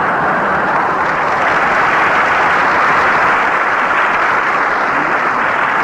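Studio audience applauding steadily, a dense clatter of many hands, heard on a 1938 live radio broadcast recording.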